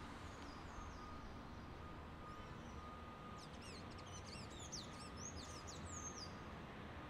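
Birds chirping over a low, steady hum of traffic. A few falling calls come near the start, then a quick run of chirps in the middle.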